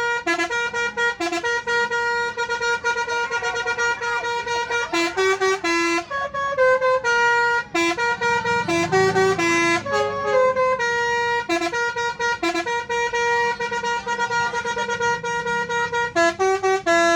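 Bus 'telolet' musical horn playing a melody: loud multi-note horn tones stepping from pitch to pitch, several notes a second, broken by short gaps.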